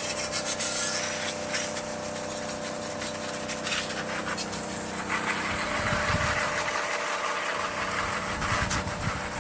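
Mobi V17 portable rechargeable pressure washer running, its pump motor humming steadily under the hiss of its water jet spraying onto a muddy bike. The spray hiss grows fuller about halfway through.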